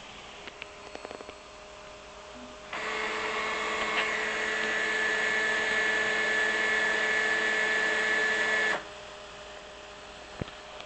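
Bare stepper motors running a G00 rapid move under their drivers: a steady high-pitched whine that starts abruptly about three seconds in and cuts off abruptly some six seconds later as the move ends. A few light handling clicks come before it.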